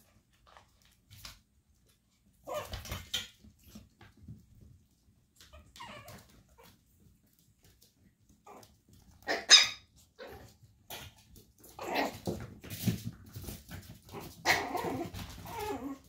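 Chihuahua puppies giving short yips and whimpers at scattered moments, with one sharp, loud yip a little past halfway. They are the ones left in the pen after a littermate climbed out, which the owner calls jealousy.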